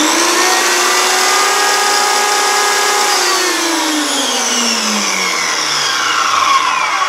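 Corded Milwaukee 15-amp circular saw running free with no load. It runs at full speed for about three seconds, then the trigger is released and the blade and motor wind down, the pitch falling steadily to the end.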